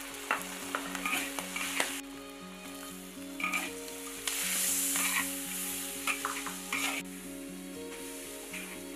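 Sliced pork sizzling in hot oil in a wok, with a metal spatula scraping and stirring in irregular clicks. The sizzle grows louder for about a second around the middle.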